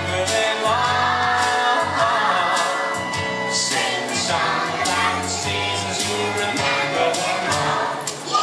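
A group of preschool children singing a song together along with recorded backing music that has a steady bass line.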